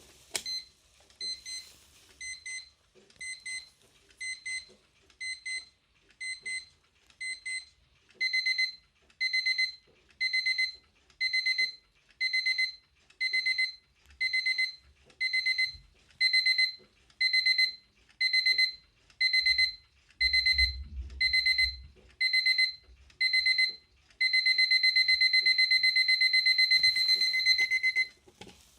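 LANDEX Polestar alarm clock's electronic alarm: bursts of rapid high-pitched beeps about once a second, soft at first, much louder from about eight seconds in. About 24 seconds in the bursts run together into continuous fast beeping, which cuts off suddenly near the end.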